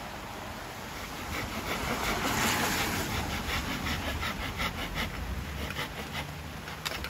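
Folding hand saw cutting through a thin piece of wood in quick, rhythmic back-and-forth strokes, over the steady hiss of rain.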